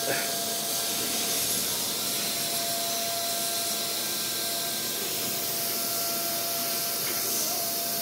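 Steady machine hiss with a faint, steady high whine from a CNC router running, its gantry moving the tool head across the table.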